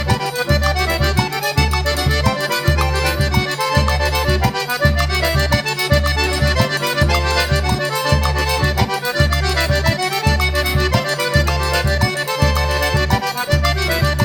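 Forró pé de serra music: an accordion plays the melody over a steady, evenly repeating bass beat, with no singing.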